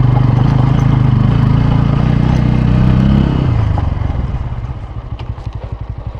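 Bajaj Pulsar N160's single-cylinder engine pulling steadily while climbing a steep dirt track. About three and a half seconds in the revs drop, and it settles into a quieter, even pulsing.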